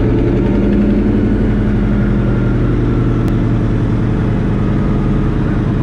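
An-2 biplane's nine-cylinder Shvetsov ASh-62 radial engine and propeller running loud and steady, heard from inside the cockpit as the ski-equipped plane taxis across snow.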